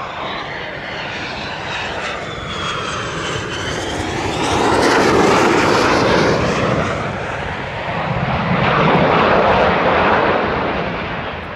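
Twin General Electric F414 jet engines of a Boeing F/A-18 Super Hornet on a low pass: a loud jet roar with a whining tone that falls in pitch as the jet goes by. It swells to its loudest about five seconds in and again about nine seconds in.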